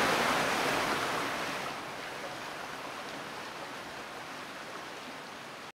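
Rushing water of a mountain stream, fading steadily and cutting off suddenly near the end.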